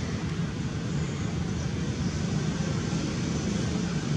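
A steady low mechanical drone over a constant hiss.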